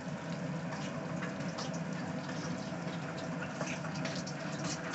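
Propane turkey-fryer burner running with a steady hiss, with scattered faint ticks and crackles.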